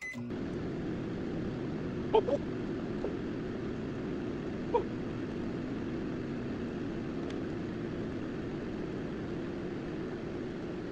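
Panasonic microwave oven running with a steady low hum while it heats a bar of Ivory soap. A short keypad beep sounds at the very start, and a couple of faint clicks come about two seconds and five seconds in.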